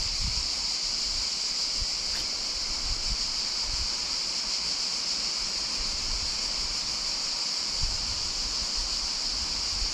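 Steady, high-pitched, unbroken buzz of a cicada chorus in the pines, with low wind rumble on the microphone.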